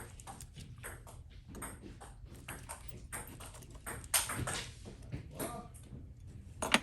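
Small light clicks and taps of hand tools on the parts of an iPhone 13 Pro Max being taken apart, irregular, with a louder knock about four seconds in and a sharp click near the end.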